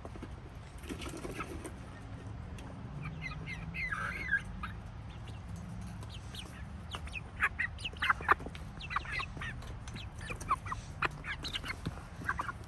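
Chickens clucking and squawking in many short, sharp calls, a few at first, then crowding together in the second half.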